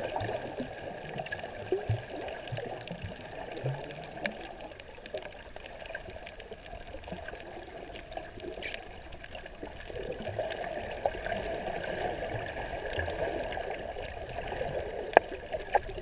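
Underwater sound heard through a camera's waterproof housing: a muffled, steady rush of moving water with scattered small clicks, and one sharp knock about fifteen seconds in.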